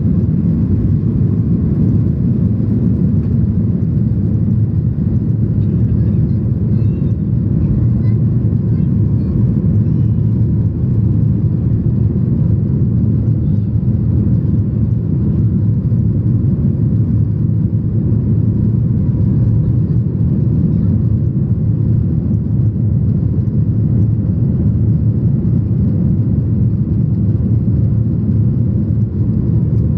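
Inside the cabin of a Boeing 737-800 at takeoff: its CFM56-7B turbofans and the airflow make a steady, loud, low rumble as the jet leaves the runway and climbs.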